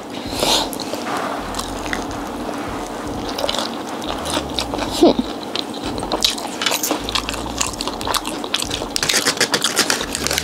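Close-up eating sounds: biting into and chewing fried chicken wings, with crunches and wet mouth clicks that come thicker near the end.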